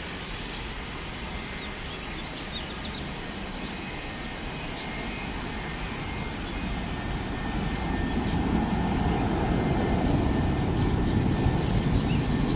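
Airbus A330-300 jet engines at takeoff power as the airliner climbs away after liftoff. The rumble grows steadily louder over the second half.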